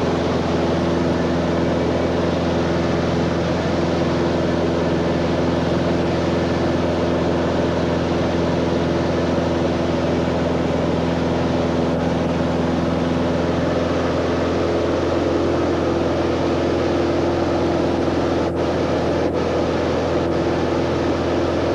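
Small propeller plane's piston engine droning steadily, heard from inside the cabin in flight, with a constant rush of air noise.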